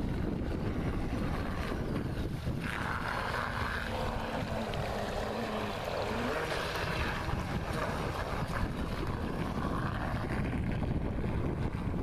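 Heavy wind noise on the microphone, with a radio-controlled speedboat's electric 590 motor and hull spray heard faintly in the distance, most plainly from about three to seven seconds in.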